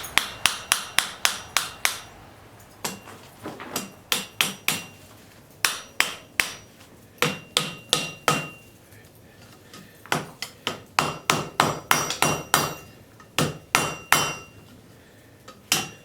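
Hand hammer striking a hot railroad spike on an anvil, in quick runs of blows about four to five a second with short pauses between runs. Many strikes leave a high metallic ring.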